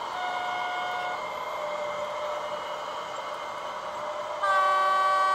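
Model railway train's horn sound, played through a small speaker: a short toot near the start, then a louder blast about a second long near the end, over a steady background hum.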